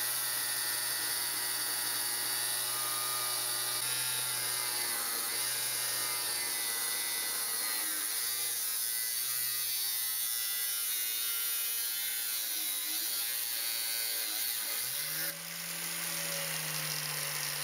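Angle grinder on a chop stand cutting through steel bar with a 1.2 mm abrasive cut-off disc, a steady motor whine with grinding hiss whose pitch sags slightly under load. About fifteen seconds in, the disc finishes the cut and the motor speeds up, running higher and freer.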